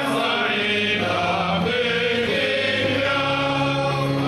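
A choir singing, with long held notes from several voices.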